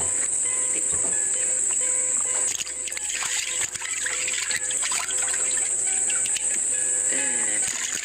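Insects droning steadily at a high pitch in swamp forest, with water splashing and dribbling as hands grab slippery catch in the flooded bottom of a wooden boat. Background music runs underneath.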